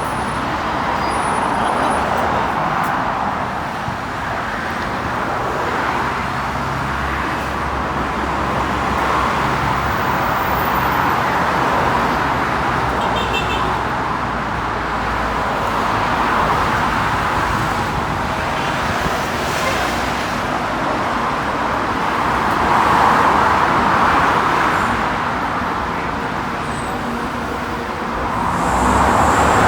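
Road traffic noise: a steady rush of car tyres and engines that swells louder twice near the end.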